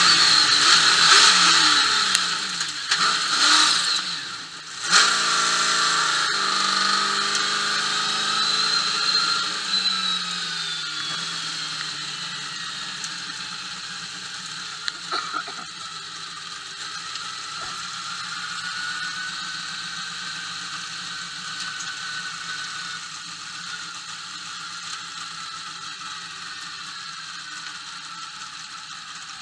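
Trophy truck V8 heard from inside the cab, revving up and down for the first few seconds, with a sudden jump in level about five seconds in. The engine note then drops away as the truck slows, leaving a quieter steady running sound with a high whine over it.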